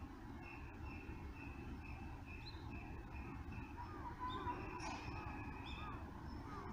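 A high, clean signal tone sounds in short blasts about two a second, then holds for about two seconds from around four seconds in. Underneath is a steady low rumble of idling bus engines, and a few brief bird chirps come around four seconds in.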